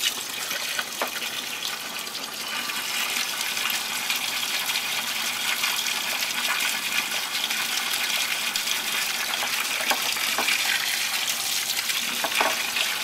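Tap water running steadily from a sink faucet and splashing onto a container held under the stream to flush it, with a few light knocks from handling.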